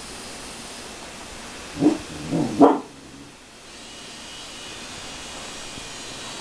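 A dog barking three times in quick succession, over a steady background hiss.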